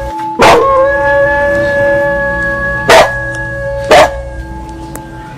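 A large temple bell struck about half a second in, its several tones ringing on and slowly fading, while a dog barks three times over it.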